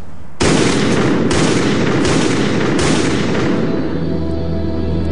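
A pistol fired about four times, roughly a shot each second, the noise of the shots ringing on between them. Music comes in near the end.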